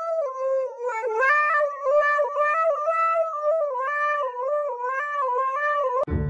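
Husky howling into a karaoke microphone: one long howl that wavers up and down in pitch, with a few brief breaks for breath. About six seconds in it cuts off abruptly and plucked music with a beat begins.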